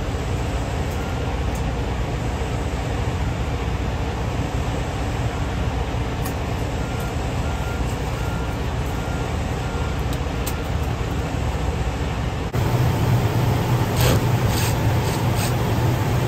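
Diesel semi-truck engine idling steadily with a low rumble. About three-quarters of the way through, the hum turns louder and deeper, with a few short clicks.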